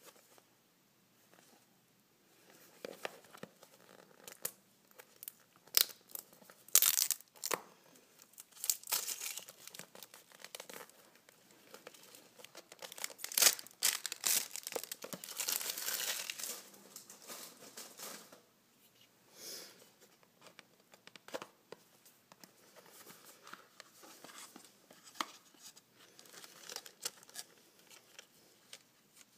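A cigarette pack's wrapper and paper packaging being torn and crinkled by hand, in irregular crackling bursts that are loudest through the middle, then lighter crinkling as the pack is opened.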